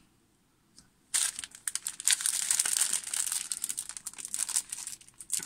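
Thin plastic packaging crinkling and crackling as it is handled. It starts about a second in, after a moment of silence.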